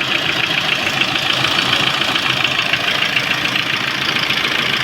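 Lada Priora engine running with a rapid, steady ticking knock over the engine note. The noise has outlasted two new camshafts and repaired hydraulic lifters, and it does not change when each spark plug is pulled in turn, so the owner rules out the pistons.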